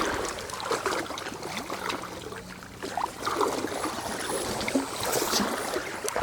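River water splashing and trickling, with irregular small splashes and knocks.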